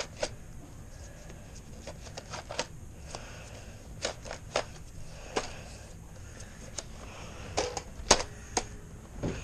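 Scattered light clicks and knocks of things being handled, about a dozen, with the loudest a sharp knock about eight seconds in.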